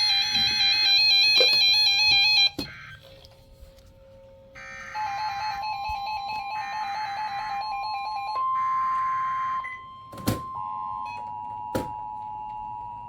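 Emergency Alert System broadcast tones. A warbling electronic alert sound plays for the first two and a half seconds. Then come three screechy digital data bursts, each about a second long, over a steady alert tone. From about ten and a half seconds the steady two-tone EAS attention signal sounds, with two sharp clicks near the end.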